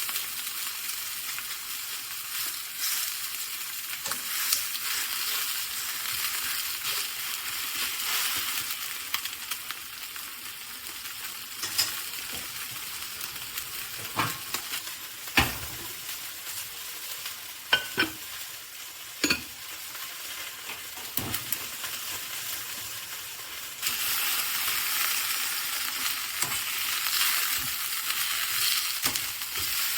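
Chicken frying in oil in a pan, sizzling steadily, with a few sharp clicks of a utensil against the pan in the middle. The sizzle suddenly gets louder near the end.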